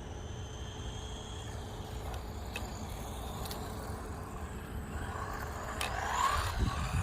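Wind buffeting the microphone with a steady low rumble, under the faint whine of a WLtoys 144001 RC buggy's electric motor. Near the end the whine rises in pitch and grows louder as the buggy speeds up.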